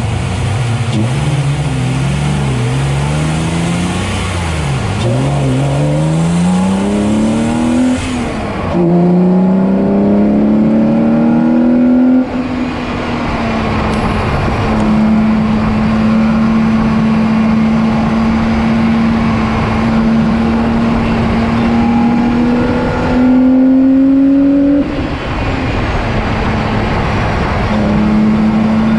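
BMW E46 race car's engine under hard acceleration on track, pulling up through the gears with the note dropping at each shift, about 5, 9 and 12 seconds in. It then holds a steady note at speed, climbs again briefly and drops near the end, over rushing wind and road noise.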